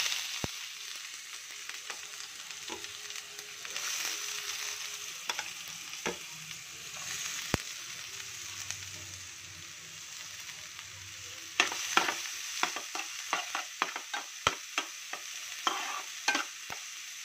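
Chopped onions frying in hot sesame oil in a metal pan: a steady sizzling hiss. About two-thirds of the way through, a run of sharp clicks and scrapes starts as the onions are stirred.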